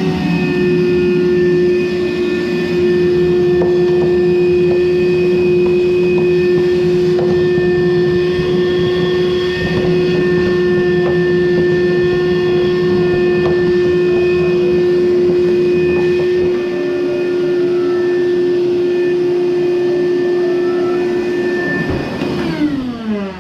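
Frigidaire clothes dryer running: its drive motor and drum give a steady whine over a rumble. About 22 seconds in it is switched off and winds down, the pitch falling.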